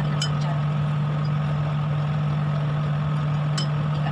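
Steady low motor hum, with two sharp ticks, one just after the start and one near the end.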